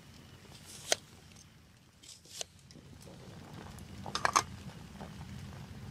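A kitchen knife cuts through an onion and knocks on a wooden cutting board, sharply about a second in and again more softly about two and a half seconds in. Near four seconds there is a quick run of ringing clinks as metal chopsticks knock against an aluminium camp frying pan while moving pieces of raw chicken.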